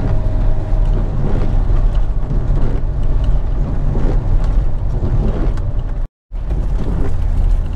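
Steady in-cabin road noise of a car driving on a rain-wet highway: low engine and tyre rumble with a hiss of tyres on wet asphalt. The sound drops out completely for a moment about six seconds in.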